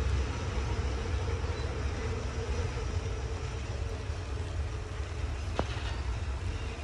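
Container freight train rolling past: a steady rumble of wagons on the rails, with a single sharp click about five and a half seconds in.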